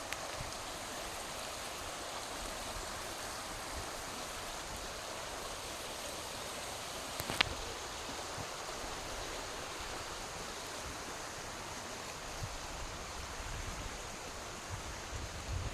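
Steady rushing of a stream's flowing water, with a single sharp click about seven seconds in.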